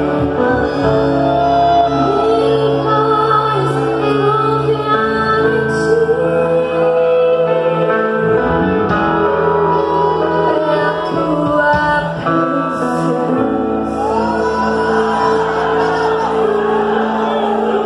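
A woman singing solo into a microphone over held, sustained musical accompaniment, amplified in a large hall.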